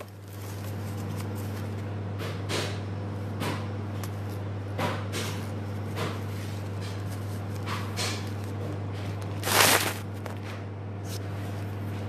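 A large sheet of white wrapping paper being handled, rustling and crinkling in short spells every second or so, with a longer, louder crinkle late on, over a steady low hum.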